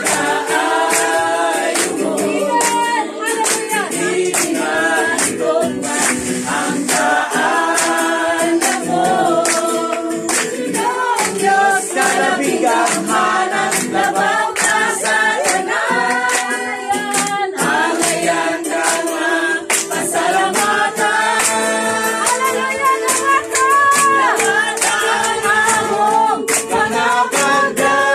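A group of voices singing a Christian worship song together, accompanied by acoustic guitar, with frequent hand-clapping.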